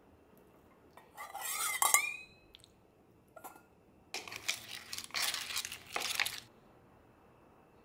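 Stainless kitchen utensils handled over a wooden bowl. About a second in, a metal mesh strainer scrapes with a brief ringing tone. From about four seconds in, a stainless ladle and chopsticks stir spaghetti and short-neck clams in the wooden bowl, with a busy clatter of metal and shells.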